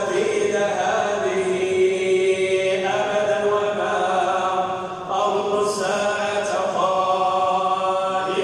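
Quran recitation chanted in long, drawn-out melodic phrases, with a short break for breath about five seconds in.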